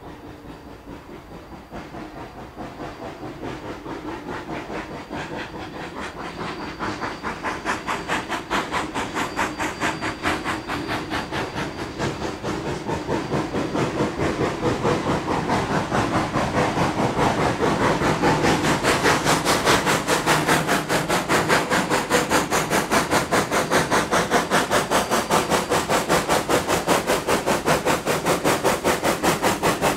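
Rio Grande Southern #20, a narrow-gauge 4-6-0 steam locomotive, working under steam with a fast, even beat of exhaust chuffs and steam hiss. It grows steadily louder over the first two-thirds and then holds at full strength.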